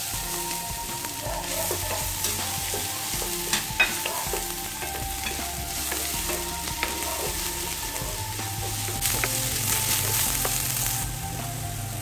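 Minced garlic sizzling in hot vegetable oil in a hammered wok, with a wooden spatula stirring and scraping through it. A couple of sharp taps of the spatula on the pan about four seconds in.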